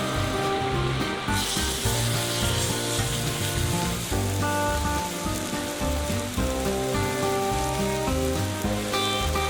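A thick steak sizzling in a hot pan, the frying hiss rising about a second in, under instrumental background music with held notes and a moving bass line.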